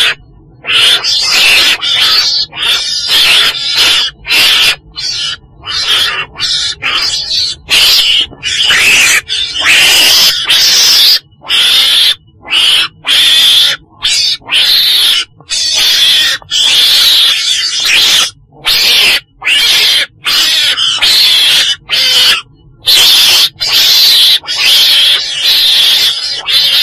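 Calls of the chồn đèn, a weasel (Mustela), in a recording made for use as a trapping lure: a long run of high, hissy squeals, one after another with brief gaps between them.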